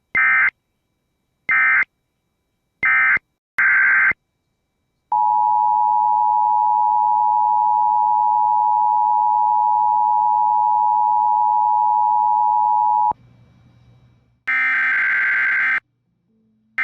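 Emergency Alert System signalling: four short buzzy SAME digital data bursts, then the EAS two-tone attention signal (853 and 960 Hz together) held steady for about eight seconds. After a short gap, longer bursts of the same data warble start near the end.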